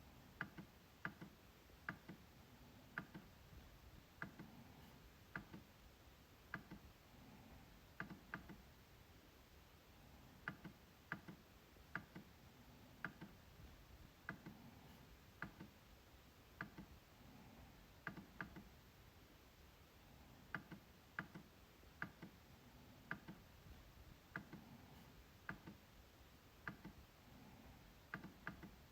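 MacBook trackpad being clicked: sharp, light clicks at an uneven pace of roughly one a second, often in quick press-and-release pairs, with a brief pause about two-thirds of the way through.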